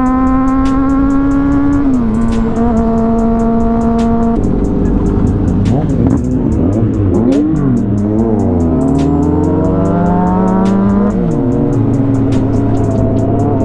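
Sport motorcycle engine running at a steady pitch, dropping in pitch about two seconds in and again near eleven seconds. From about four seconds in, several engines rise and fall across one another. Background music with a steady ticking beat plays under it.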